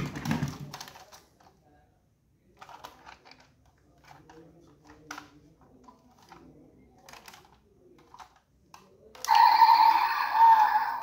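Clicks, taps and light clatter of die-cast metal model cars being shifted and handled on a table, loudest at the very start. About nine seconds in, background music starts.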